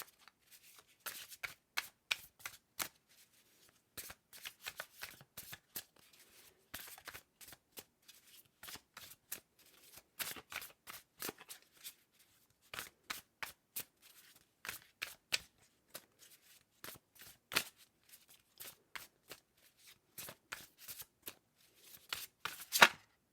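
Deck of tarot cards being shuffled by hand: a long run of quick, irregular card riffles and flicks, with one louder snap near the end as a card comes out of the deck.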